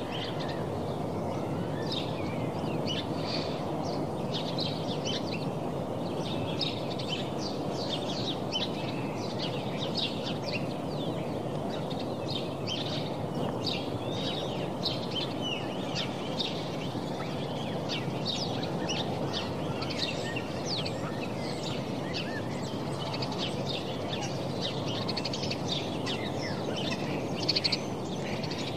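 Many small birds chirping busily and without a break over a steady low background hum.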